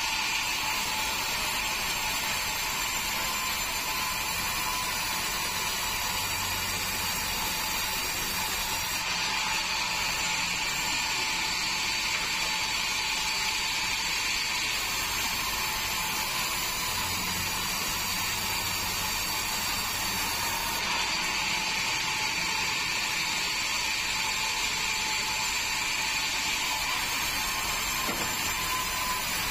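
Band sawmill running steadily, a constant high-pitched whine over a hiss from the blade and machine.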